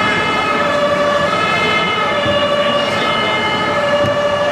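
Two-tone fire engine siren from a radio-controlled model fire truck, alternating between a higher and a lower note, over a steady din of background noise.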